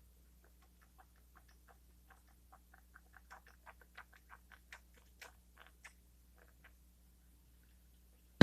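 Plastic bottle of baby oil being squeezed, giving a run of small irregular clicks and squelches that thicken in the middle and then stop. Near the end comes one sharp knock, the loudest sound.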